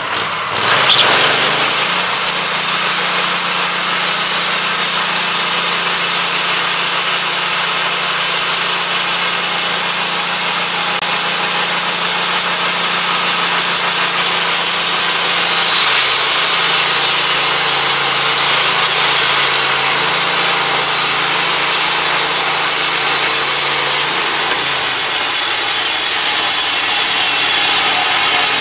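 Wood-Mizer LT15 Go portable band sawmill revving up about a second in, then running hard as its band blade cuts through a log: a loud, steady engine drone under a hiss of sawing.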